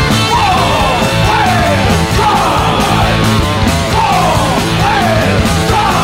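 Loud rock music with shouted vocals and guitar, and a falling figure repeating about once a second.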